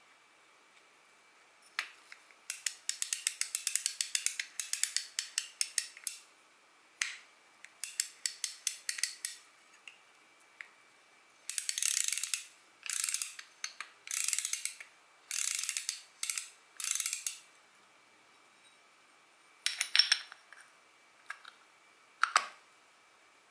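Fishing reel mechanism turned by hand in bursts: trains of rapid ratchet-like clicking that start and stop over and over, with a few single clicks near the end.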